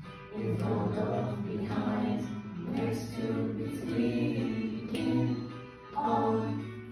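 A recorded children's song teaching prepositions of place plays over classroom speakers, with several voices singing the lyrics in short phrases.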